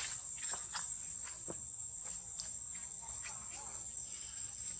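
Insects making a steady, high-pitched drone, with scattered faint short clicks and squeaks over it.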